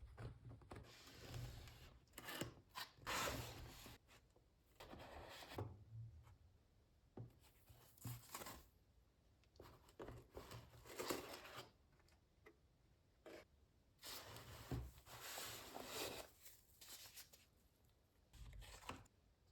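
Typing on an Akko MU02 mechanical keyboard with lubed HMX Caramel Pudding switches, an FR4 plate and rubber keycaps: quiet keystrokes in short runs, with pauses between the runs.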